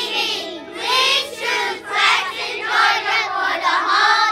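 A class of young children singing together in unison, in phrases of about a second each.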